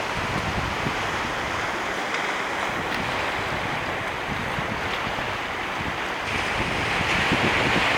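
Wind blowing across the microphone: a steady rushing hiss with gusty low rumbles, growing louder about six seconds in.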